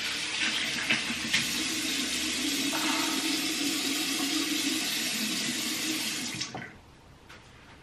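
Bathroom sink tap running steadily while water is splashed onto the face from cupped hands, with a few splashes early on. The tap is shut off suddenly about six and a half seconds in.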